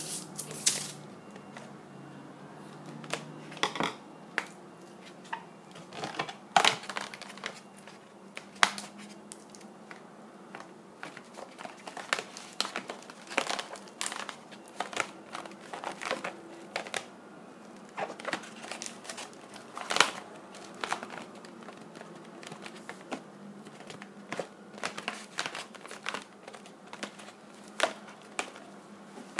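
Latex modelling balloon being twisted and bent by hand: irregular short rubbing and crinkling noises of latex against latex and fingers, some sharper and louder than the rest.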